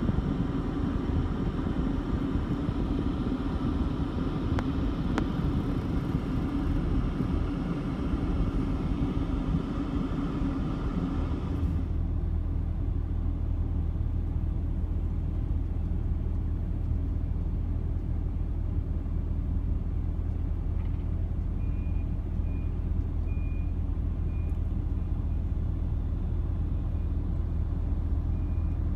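Diesel engine of a Wille 365 utility machine running steadily while it works snow with its bucket. About twelve seconds in the sound changes abruptly to a deeper, duller drone, and a faint high beeping comes and goes later on.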